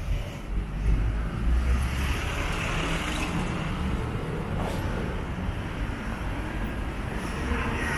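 City street traffic: motor vehicles passing, a steady low rumble with a hiss of tyres on the road.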